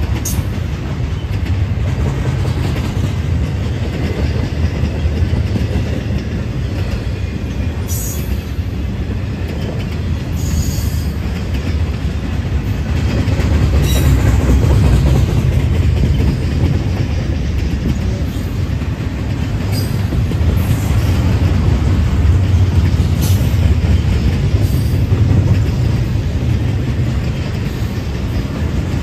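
Intermodal freight train cars (highway trailers, then double-stacked containers) rolling past close by. The wheels clack over the rail joints under a steady low rumble, with brief high-pitched wheel squeals now and then.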